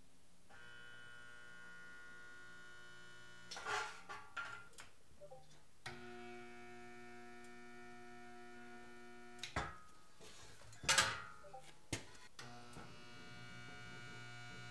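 Harbor Freight spot welder's transformer humming in stretches of a few seconds as it welds, with short crackles and sharp clicks between the welds.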